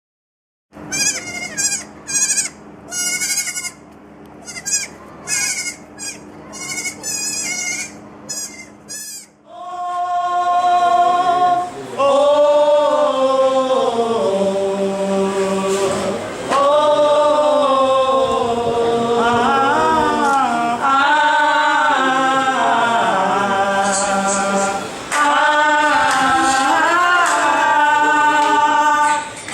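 A goat bleating repeatedly, about ten short quavering calls. About nine seconds in, a choir starts singing slow, sustained lines.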